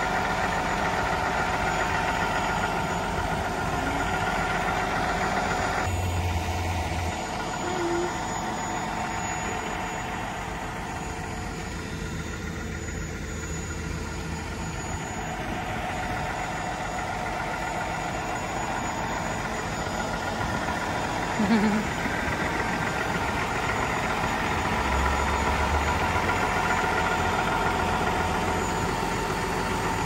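Concrete boom pump truck's diesel engine running steadily. It holds an even drone, and a low hum swells briefly twice.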